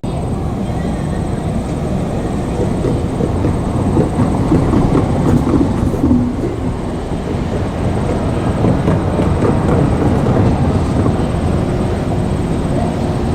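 JR Kyushu 817 series electric multiple unit running past on the rails, a loud, steady running noise.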